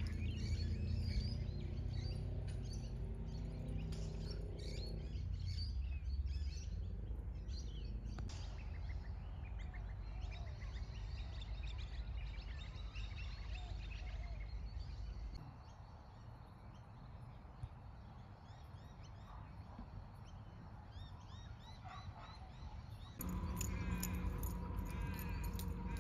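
Wild birds chirping and calling over a low steady rumble. The rumble drops away about halfway through, and a steady low hum comes in near the end.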